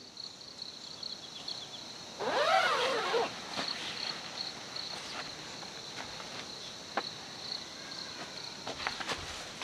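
Outdoor campsite ambience with steady high pulsing insect chirping. About two seconds in, one loud call rises then falls in pitch for about a second, followed by scattered light clicks.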